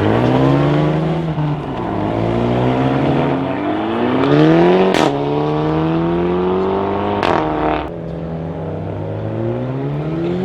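Hyundai i30 N's turbocharged four-cylinder engine with an Akrapovic exhaust accelerating hard through the gears. The pitch climbs, drops back at each shift and climbs again, with a sharp exhaust crack at two of the shifts, about halfway and about two-thirds in.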